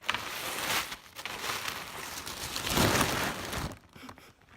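Rustling and crinkling of a shopping bag and clothing being handled, loudest about three seconds in and dying down near the end.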